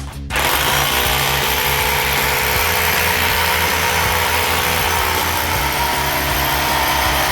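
Workzone SDS rotary hammer drill running steadily at full speed, switched on just after the start and held without a break.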